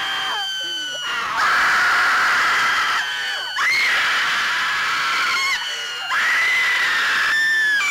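A man and women screaming in long, loud, high-pitched screams, about four held screams one after another with brief breaks, some voices overlapping.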